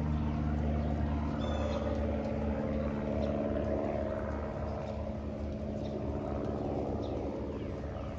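Aircraft engine drone, a steady low hum that slowly fades.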